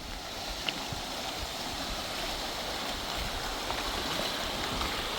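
Rushing water: a steady noise that grows slowly louder.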